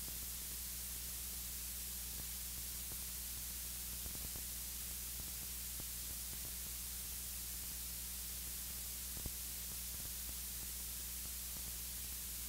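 Steady electronic hiss with a low mains hum underneath, the noise floor of the audio gear, with a few faint ticks, the clearest about nine seconds in.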